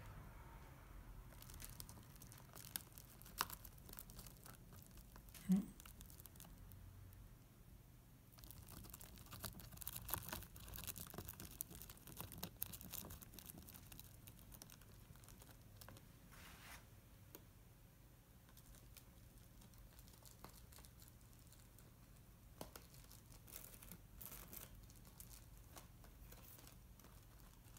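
Budgerigar pecking at bubble wrap: faint crinkling with scattered small pops and clicks, busiest around the middle.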